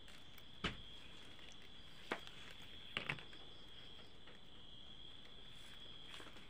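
Flat plastic weaving strips clicking and rustling as the hands pull them through the weave: a single click under a second in, another about two seconds in, and a quick pair around three seconds. Under them runs a steady high insect trill.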